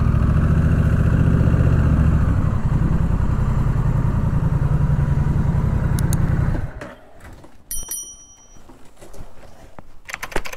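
Honda Rebel 1100's parallel-twin engine running at low speed with a steady pulse, then shut off about two-thirds of the way in; afterwards only faint clicks and a brief high chirp.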